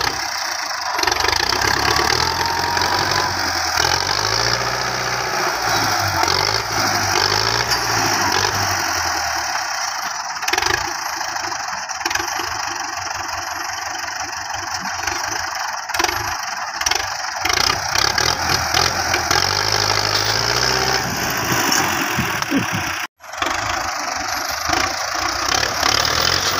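Belarus 510 tractor's diesel engine running, its revs rising and falling.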